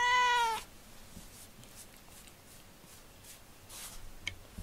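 A domestic black cat gives one short meow, about half a second long, its pitch rising at the onset and dipping at the end. After it come faint rustling and a small click near the end.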